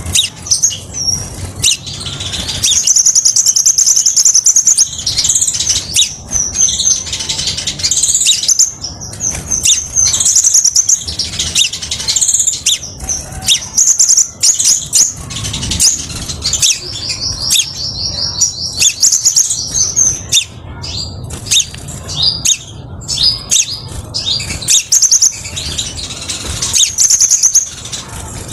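Crimson sunbird (sepah raja) singing: a stream of high, sharp chirps and rapid trills, with two long, fast, even trills of a few seconds each, one about three seconds in and one about sixteen seconds in. A faint low hum sits beneath.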